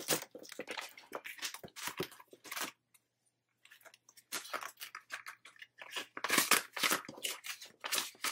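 Plastic cash-binder envelopes and paper dollar bills rustling and crinkling as they are flipped through and handled, in short scratchy bursts. It goes nearly quiet for a moment about three seconds in, and the loudest rustles come near the end.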